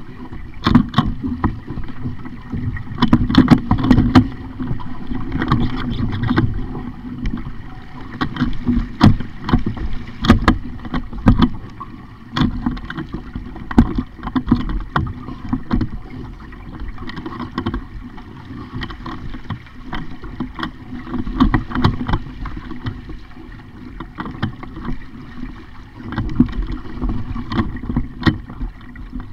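A small sailing dinghy under way: water splashing against the hull and wind on the microphone, with many sharp knocks throughout.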